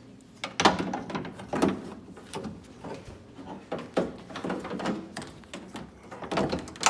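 Irregular clunks, knocks and rattles of a car door lock assembly being pushed and jiggled into the door cavity, hitting against the window guide and door panel as it fails to fit.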